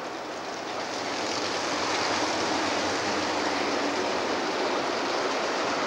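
A pack of winged sprint cars racing past together, their engines merging into a dense, steady wash of noise that builds over the first second or two and then holds, inside a domed stadium.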